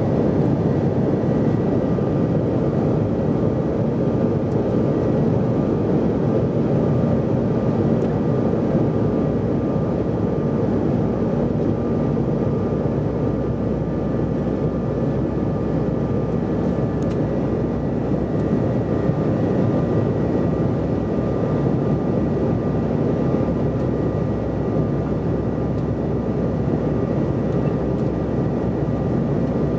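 Steady cabin noise inside a Bombardier CRJ700 regional jet in flight on approach: a constant rush of air and the drone of its rear-mounted General Electric CF34 turbofans, with a few faint steady whine tones.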